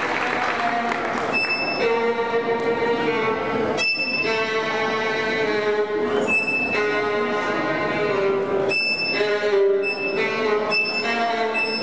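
Background music with long held notes and a sharp accent about every two and a half seconds; applause dies away in the first second.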